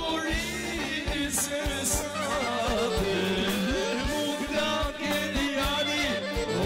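Live Albanian urban-folk band music: an ornamented, wavering clarinet melody over a steady drum-kit beat.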